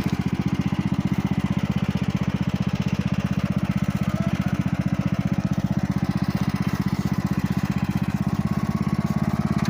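Riding lawn mower engine running steadily with an even, rapid chugging pulse.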